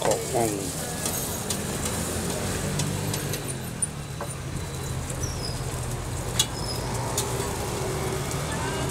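Street background at a roadside food stall: a steady low hum with a few scattered sharp clicks and knocks.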